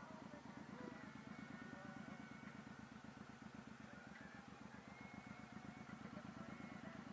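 Suzuki Boulevard M109R's V-twin engine running at low speed, heard faintly as a steady, even pulse.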